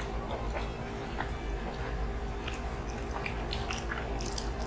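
Close-up mouth sounds of people chewing food with their mouths closed: scattered soft clicks and lip smacks over a steady low hum.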